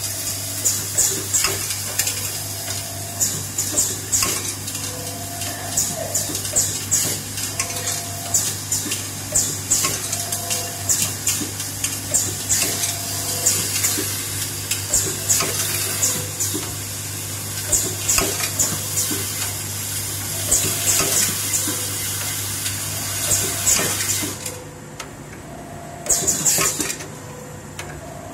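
Automatic nut-tapping machine running: a vibratory bowl feeder hums steadily while steel nuts rattle and clink in the feed and at the tapping head, with a short tone repeating about every two seconds as the machine cycles. The feeder's hum stops near the end, and the clinking carries on.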